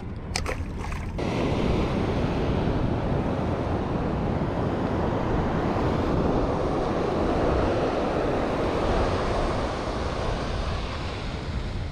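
Ocean surf breaking and washing up a sandy beach, a steady rush that swells in the middle and eases near the end, with wind on the microphone. A few short clicks in the first second.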